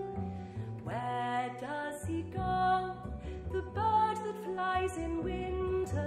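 Acoustic music: a kora's plucked strings and a double bass's low sustained notes, joined about a second in by a singing voice that slides between notes.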